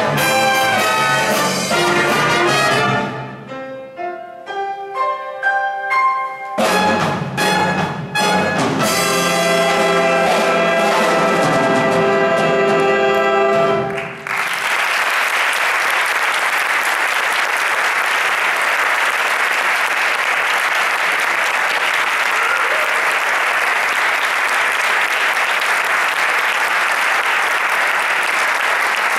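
Big band of trumpets, trombones and saxophones with rhythm section playing the closing bars of a swing chart. A sparser, quieter break comes a few seconds in, then the full band returns and cuts off on a final chord about halfway through. An audience then applauds steadily.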